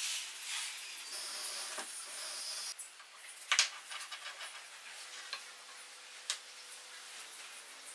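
Paintbrush bristles swishing finish across the end grain of a wooden log, a steady high hiss that stops abruptly about three seconds in. Then light clicks and knocks as a lamp cord and socket are handled and set against the wood inside the hollow log.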